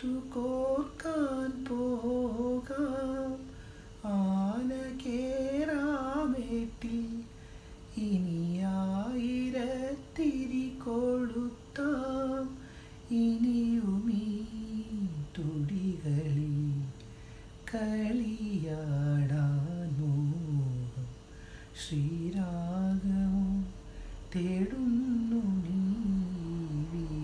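A man's unaccompanied voice carrying a slow melody in long, wavering phrases with held notes and short pauses for breath, no clear words. A faint steady tone runs underneath.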